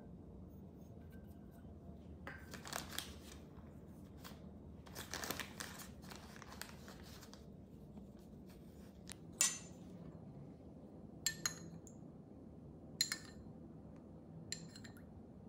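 Glutinous rice flour being sifted through a small metal sieve into a glass bowl: two stretches of soft gritty rustling. Then a metal measuring spoon clinks sharply against the glass bowl four times.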